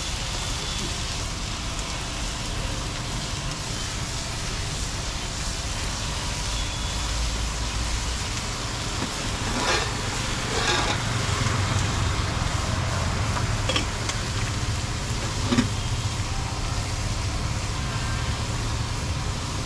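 Paneer-and-onion filling and dosa batter sizzling on a large flat griddle, under steady road traffic. A few short sharp knocks around the middle.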